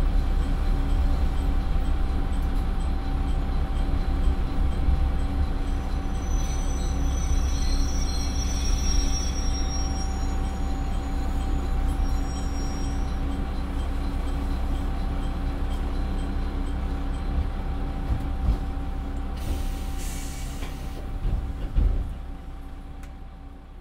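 Nissan Diesel PF6HT03 diesel engine of a NaGaRa 3 railcar running steadily under the floor as the car brakes to a stop, heard from inside the cabin. A high squeal of the brakes or wheels comes from about 6 to 13 seconds in, a short burst of air hiss comes around 20 seconds, and a knock sounds near 22 seconds before the sound fades away.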